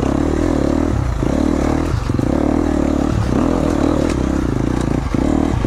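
KTM 250 XC-F single-cylinder four-stroke dirt bike engine running at low speed under light throttle, the note dropping briefly several times as the throttle is rolled off and back on.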